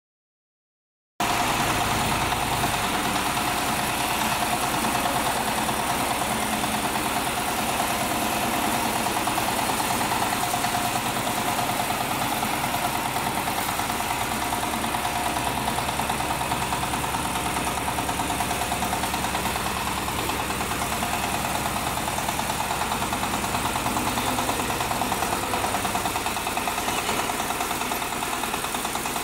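Diesel engine of a mini loader tractor idling steadily, with a fast, even beat.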